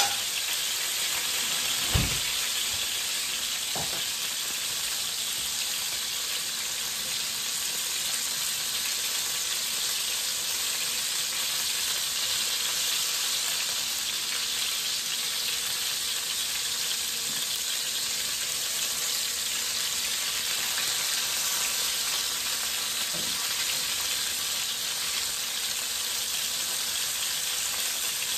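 Cod fillets frying in oil in a pan: a steady sizzle throughout, with one dull thump about two seconds in.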